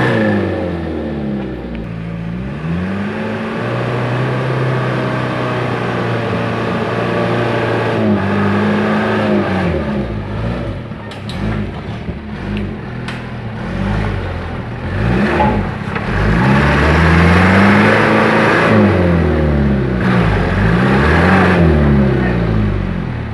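Mitsubishi cargo truck's diesel engine revved hard again and again, its pitch climbing and falling back many times as the truck labours through deep mud.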